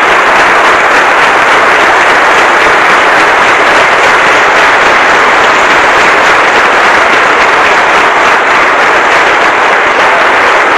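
Audience applauding, loud and dense.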